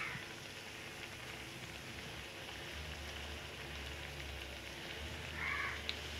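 Hot oil sizzling steadily in a frying pan as breaded, chocolate-filled bread rounds shallow-fry. There is a single sharp click near the end.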